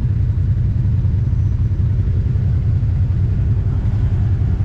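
A vehicle engine running steadily, a constant low rumble with no change in pace.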